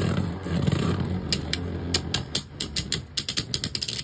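Rapid, irregular clicking and rattling of hard plastic Beyblade parts, starting about a second in and coming faster toward the end.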